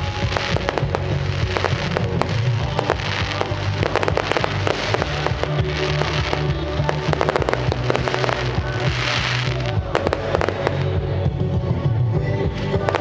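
Fireworks going off in quick succession: many sharp cracks and bangs from bursting shells, with a dense crackling hiss about nine seconds in. Music plays along with the display.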